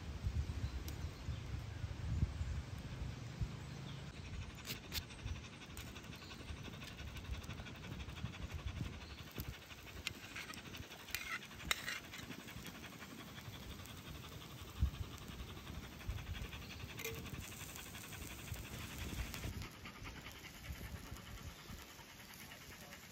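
Black Labrador panting steadily, loudest in the first few seconds. About halfway through, a few short scrapes of a metal spatula on a cast-iron griddle.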